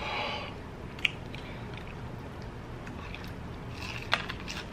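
A short breathy hiss at the start, then a man biting into a battered onion ring: mouth clicks and a crunch about four seconds in.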